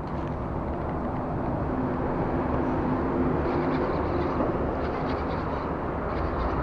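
Steady outdoor rumble of engine noise with a faint low hum running through it.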